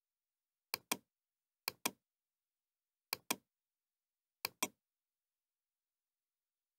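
Computer mouse clicks: four quick pairs of clicks, each a press and release or a double-click, spaced irregularly over about four seconds.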